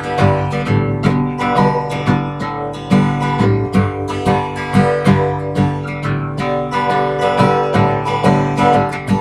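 Strummed acoustic guitar playing chords in a steady rhythm, with no voice.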